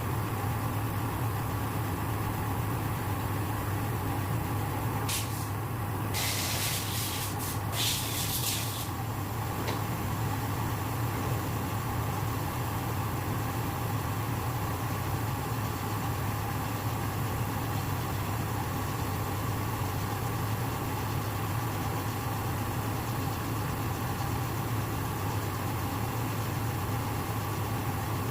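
Metal lathe running steadily with a constant hum while machining a collar. About five seconds in there are three short hissing bursts, the longest lasting about a second.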